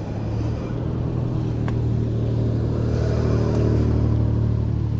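E-bike hub motor humming steadily with tyre and wind noise as the bike rides along, growing gradually louder as it gathers speed.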